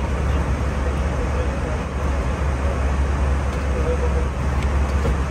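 Steady cabin noise of an Airbus A320 in flight: an even, deep rumble of engines and airflow that does not change.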